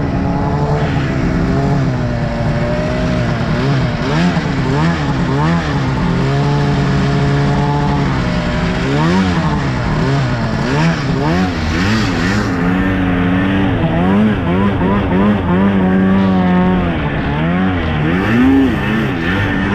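Snowmobile engine revving up and down over and over as the throttle is worked while riding, its pitch rising and falling every second or so.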